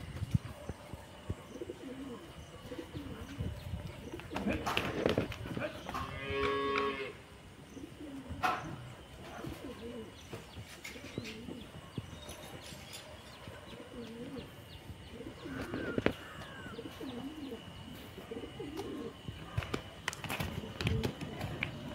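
Cow mooing, with the loudest call about six seconds in and fainter calls elsewhere, along with a few sharp knocks.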